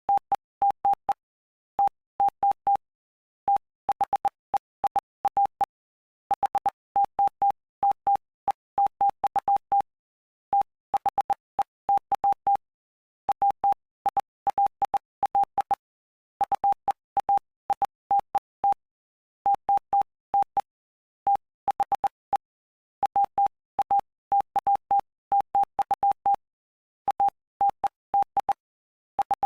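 Morse code sent as a single steady beep tone, keyed on and off in short dots and longer dashes grouped into letters and words, spelling out the text of Mark chapter 8 for code practice. A faint click marks the start and end of each beep.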